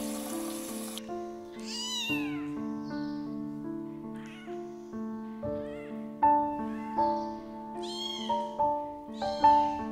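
A kitten meowing again and again in high-pitched, arching cries, about six times, the loudest near the end. Background music of held, stepping notes plays underneath.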